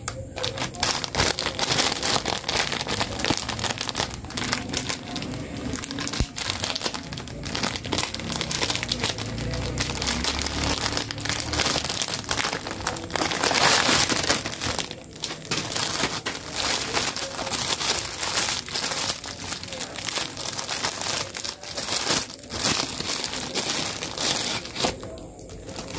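Clear plastic pouch of KF94 face masks crinkling continuously as it is handled and opened, full of sharp crackles, loudest about halfway through.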